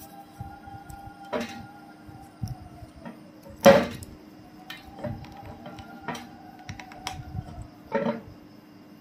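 Foil tear-strip on a whisky bottle's neck being pulled and peeled off by hand: crinkling with a series of short, sharp crackles, the loudest about four seconds in.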